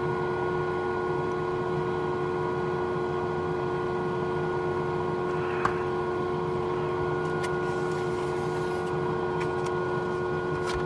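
Steady mechanical hum of a small machine or appliance, holding several fixed tones, with a single faint click about halfway through.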